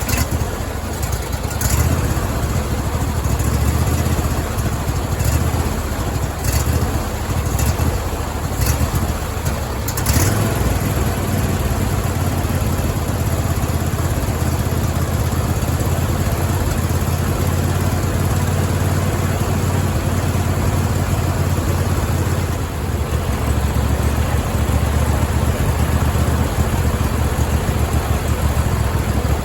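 26 hp Briggs & Stratton V-twin engine in a Cub Cadet lawn tractor running steadily just after starting. Several sharp clicks or knocks are heard in the first ten seconds, and the engine sound dips briefly a little over twenty seconds in.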